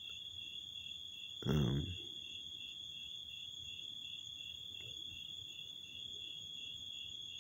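Crickets trilling steadily in the background: a constant high-pitched trill over an evenly pulsing chirp. A man's voice makes one brief wordless sound about a second and a half in.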